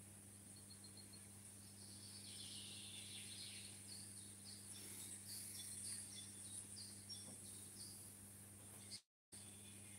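Faint riverside ambience: a small bird singing a run of short high notes, about two a second, over a steady low hum and hiss. The sound cuts out completely for a moment near the end.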